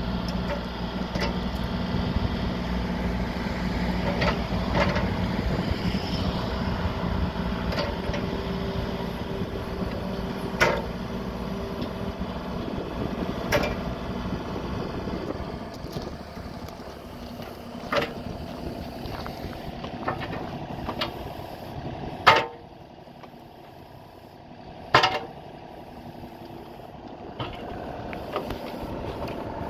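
Kubota U35-4 mini excavator's diesel engine running with a steady hum while the boom and arm are worked hydraulically. Several sharp metal knocks come from the machine, the loudest two in the last third. The engine sound fades noticeably in the second half.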